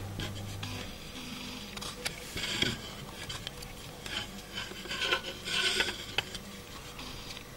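Handling noise: irregular rubbing and scraping in short bursts, with a few light clicks. A low steady hum stops about a second in.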